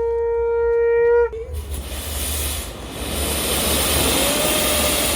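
A conch shell (shankha) blown in one long, steady note that cuts off about a second in. A loud, steady hiss follows.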